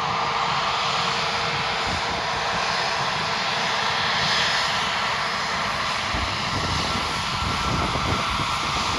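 Airliner engines heard at an airport: a steady, even rushing noise with faint steady whine tones in it, holding level throughout.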